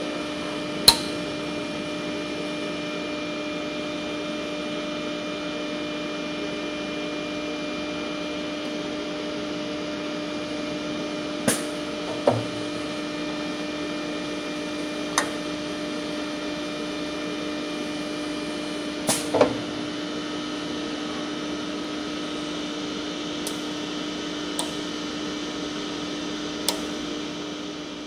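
Steady electrical hum from an idle automatic TIG welding machine, with a handful of short, sharp clicks as metal parts of its clamping jig are set by hand.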